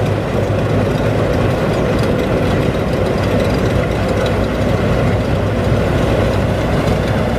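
Rice combine harvester's heavy engine running steadily, a constant low drone.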